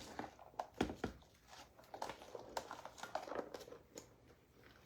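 Spoon spreading leftover ground meat into a casserole dish: faint, scattered clicks, knocks and soft scraping of utensil against the dish.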